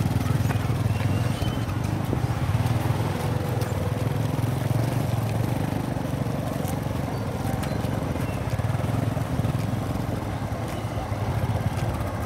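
Small underbone motorcycle engines running steadily at low speed as the bikes crawl through mud.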